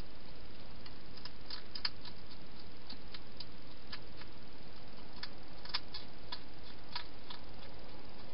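A hedgehog eating at a bowl inside a plastic feeding box: irregular crisp clicks and crunches, several a second, over a steady hiss.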